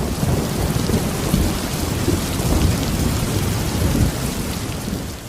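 Loud, steady roar of falling water with a deep rumble underneath, fading out near the end.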